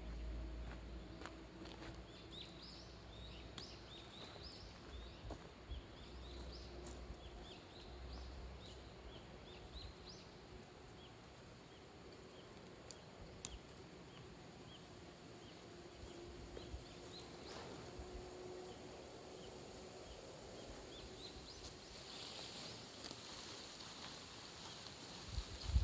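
Quiet outdoor ambience with small birds chirping: many short, quick high chirps through the first fifteen seconds or so, over a faint steady low hum. A soft hiss comes in near the end.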